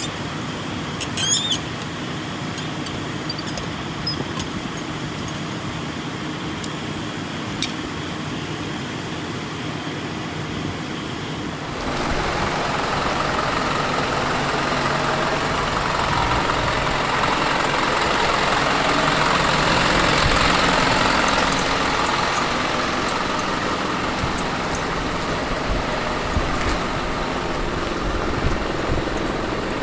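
Motor vehicle engine noise: a low steady background that steps up sharply about twelve seconds in, swells to its loudest around twenty seconds, then slowly fades.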